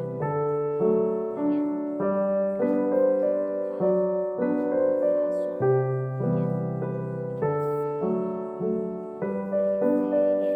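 Background piano music, with chords changing every half second or so.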